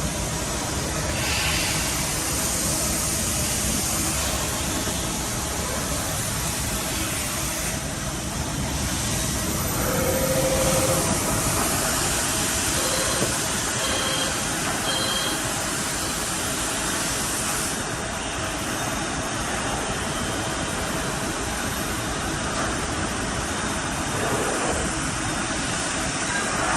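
Steady din of factory machinery running, with a few short beeps near the middle.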